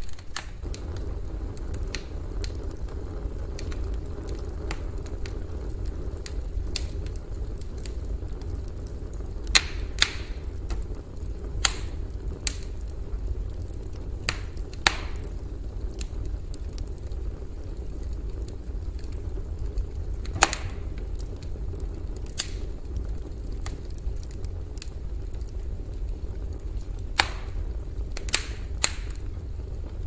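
Campfire burning: a steady low rumble with sharp crackles and pops at irregular intervals, every few seconds.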